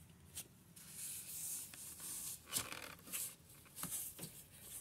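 Faint rubbing and several short, light clicks as a gloved hand works the rear foot brake pedal of a Honda Recon 250 ATV, a pedal that is sticking and will not return.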